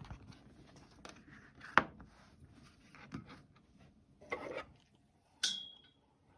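Small objects being handled: scattered light taps and rustling, with one loud click about two seconds in. Near the end comes a sharp tap that rings briefly in a single high tone.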